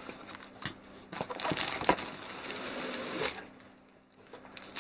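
Plastic wrapping crinkling and cardboard rustling as a plastic-wrapped shoulder bag is pulled out of a cardboard box, with a couple of sharp knocks; the rustling runs from about a second in to just past three seconds, then dies away.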